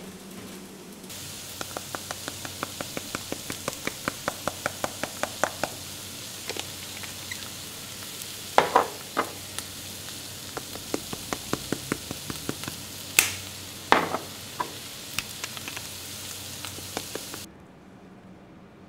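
Diced eggplant and cherry tomatoes sizzling in a frying pan, with a quick run of light taps and a few louder knocks of the cooking utensils against the pan as the food is stirred. The sizzle cuts off suddenly near the end.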